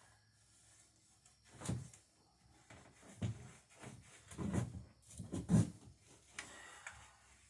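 A few dull knocks and bumps of handling while cuprous oxide wood preservative is brushed onto the wooden boat: four irregular thuds roughly a second or more apart, the loudest about five and a half seconds in.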